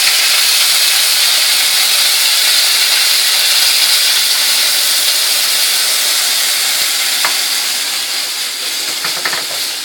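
Onion paste sizzling loudly in hot oil in a kadhai, a dense steady hiss that eases a little in the last few seconds, with a few light clicks near the end.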